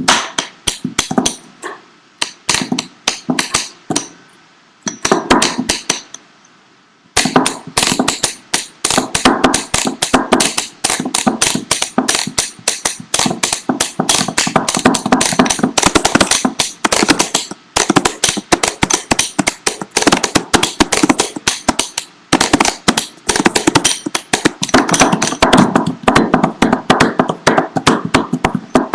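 Desk percussion: a desk and the small objects on it drummed with the hands, knocks and taps in a rhythm. Sparse, separate strokes at first, then a short pause about seven seconds in, then a fast, dense run of taps.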